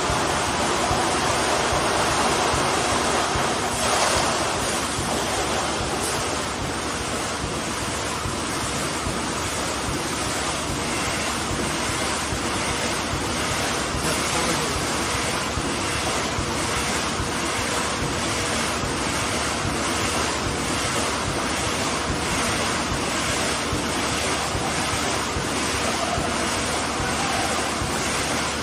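Automatic wire mesh welding machine running: a steady, loud noisy roar with a faint regular stroke about once a second.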